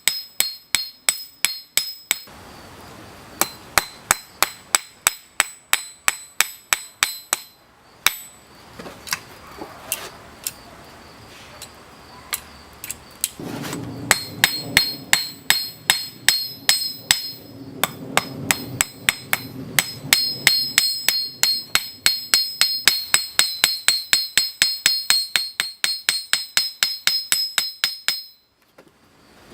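Blacksmith's hammer forging hot steel on an anvil: quick, even blows, three or four a second, each with a high ring from the anvil. The hammering pauses briefly twice and stops near the end.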